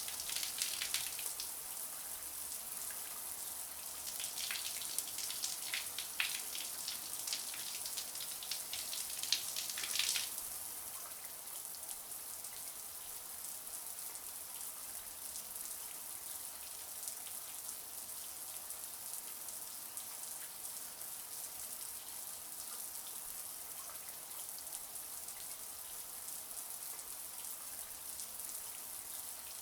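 Shower running: a steady hiss of water spray, with louder spattering drops during the first ten seconds or so.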